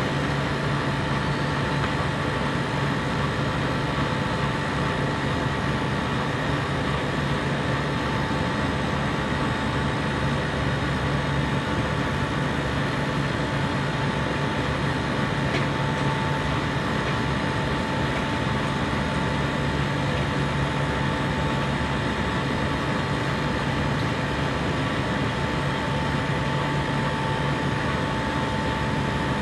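A compressor running steadily: a constant machine noise with a low hum and a thin high whine that never change.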